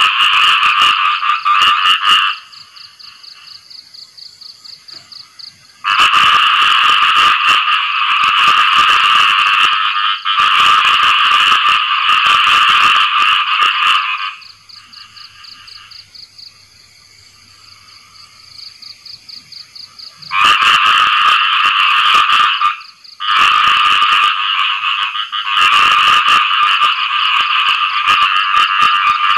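A chorus of khiat i mo frogs, a small Thai frog, giving dense rapid rattling calls. The males are calling for mates after rain. The calling comes in long loud bouts of several seconds, with a few seconds of fainter calling between them.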